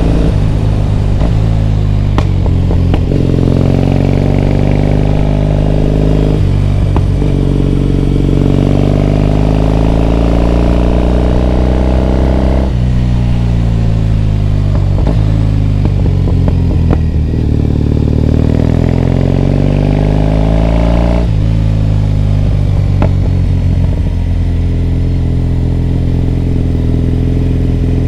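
Triumph Bonneville T100's parallel-twin engine pulling through the gears while riding. The revs climb, drop at a gear change about six seconds in, and climb again. They fall away through the middle, rise once more, and drop at another shift about two-thirds through before settling into a steady cruise.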